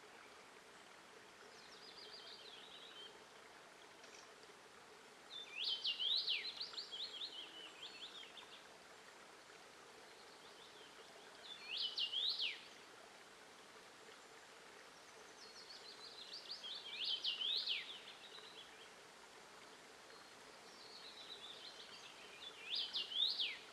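A male common rosefinch singing: short phrases of quick, sweeping whistles, repeated about five times a few seconds apart.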